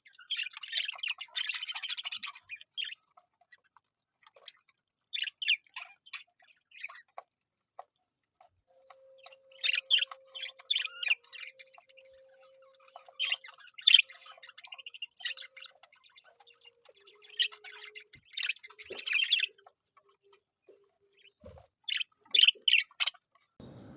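Parrot squawking and chirping in short high-pitched bursts: about six clusters of calls with pauses of a second or two between them.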